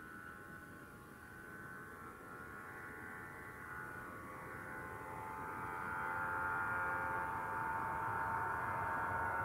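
Airbus A319 jet engines at takeoff power as the airliner rolls down the runway and lifts off: a steady whine of several tones over a rushing noise, growing louder until about six seconds in, then holding.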